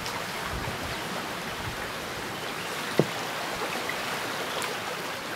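Steady rushing noise with one short, sharp knock about three seconds in.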